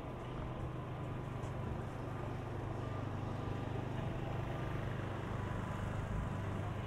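Street traffic: a motor vehicle's engine running with a steady low hum over general city street noise.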